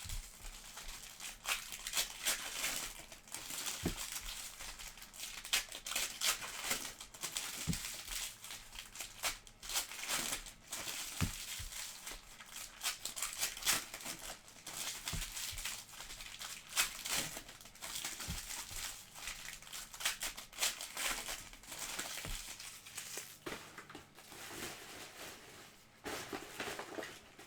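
Plastic wrapping crinkling and tearing as sealed trading-card boxes and packs are opened. This is a continuous, irregular crackle with sharp ticks and a few soft knocks of handling, and it dies away near the end.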